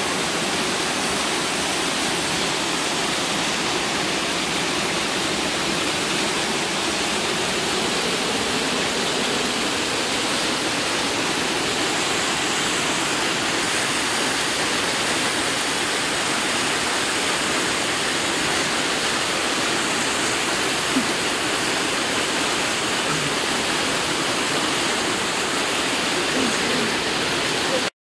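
Steady rushing of a mountain stream's water, an even hiss that holds unchanged throughout, with one faint click about 21 seconds in.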